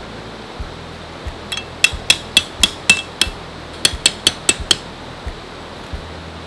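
Hammer driving a metal tent stake into the ground: two runs of sharp, ringing metallic strikes, about seven and then five, roughly four a second.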